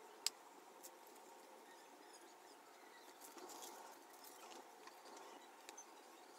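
Faint crinkling and rustling of crumpled aluminium foil and paper being handled, with one sharp click about a quarter second in and a busier patch of crinkles around the middle.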